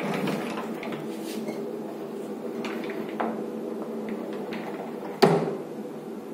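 A washroom cubicle door being handled by its metal handle: a few small clicks, then one sharp bang of the door about five seconds in, over a steady hum.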